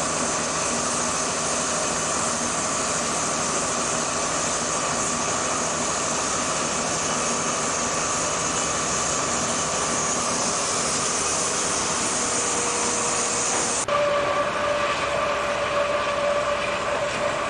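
Diamond wire saw cutting through reinforced concrete: a steady grinding noise with held whining tones as the wire runs over its pulleys. The sound shifts abruptly about three-quarters of the way through, the high hiss dropping away and a lower whine taking over.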